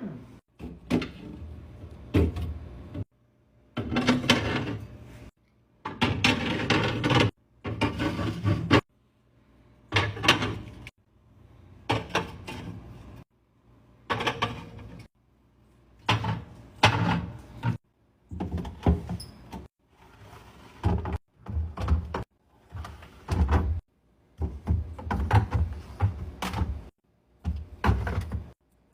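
Fridge restocking handling noises: plastic containers, bottles and fridge drawers or doors being set down, slid and closed, heard as short clusters of knocks, clatter and thuds split by brief silent gaps.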